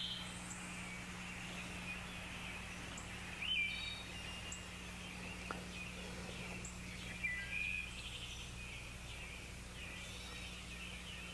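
Faint outdoor ambience with scattered short bird chirps and calls over a low steady hum.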